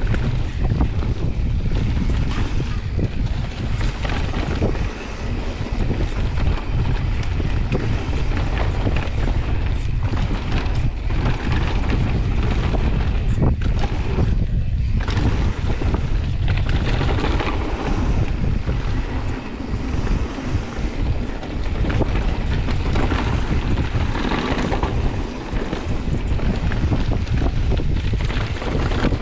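Mountain bike descending a dirt and stony trail at speed: knobby tyres crunching over dirt and stones, with frequent small knocks and rattles from the bike, under heavy low wind noise on the microphone.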